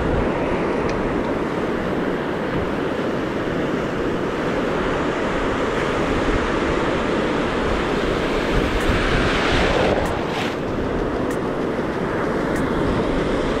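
Ocean surf washing onto a beach, a steady rush of waves with wind buffeting the microphone; a wave breaks louder about nine to ten seconds in.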